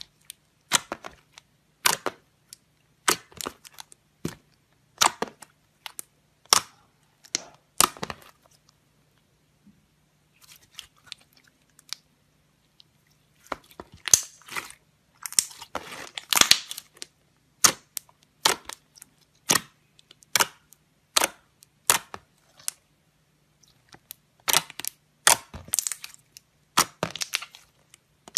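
Fluffy slime kneaded and squeezed by hand, trapped air bursting in sharp pops and cracks, irregular at about one or two a second, with a quieter stretch midway.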